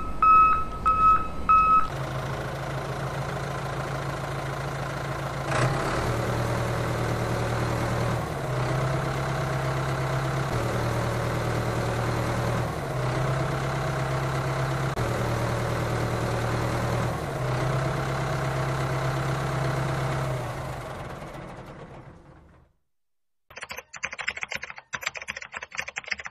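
Small electric motor of a homemade toy tractor running steadily as it drags its plough through wet mud. The hum shifts slightly every couple of seconds and fades out near the end.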